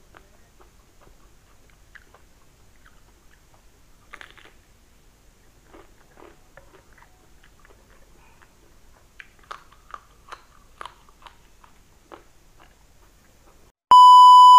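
Close-miked biting and chewing of fried samosas: scattered crisp crunches and wet mouth clicks, busier around ten seconds in. Near the end a loud steady test-tone beep from a TV colour-bars card cuts in and stops abruptly.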